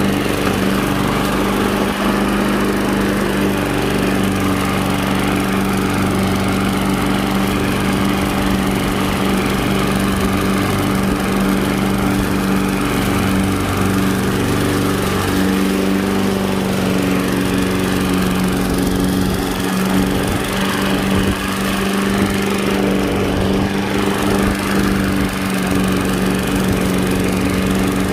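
Toro gas walk-behind push mower running steadily while cutting grass. The engine's pitch sags slightly about halfway through, then recovers.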